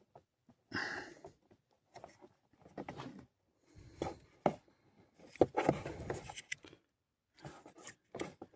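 Hands working plastic dashboard parts and wiring: intermittent rubbing and scraping with a few sharp clicks.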